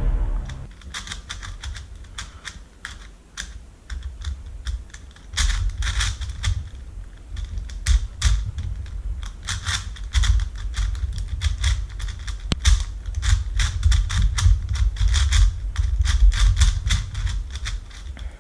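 A Rubik's brand 5x5 puzzle cube's plastic layers clicking and clacking as they are turned in quick, irregular runs, with a low handling rumble underneath: a parity algorithm being executed on a stiff cube.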